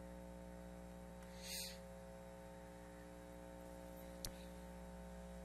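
Steady electrical mains hum on the sound system, with a brief soft rustle about a second and a half in and a single sharp click about four seconds in.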